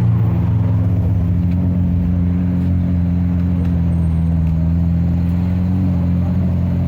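Lamborghini Aventador's V12 engine idling steadily, a deep even note with no revving.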